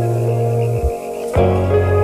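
Calm ambient background music of sustained keyboard chords, changing to a new chord about one and a half seconds in.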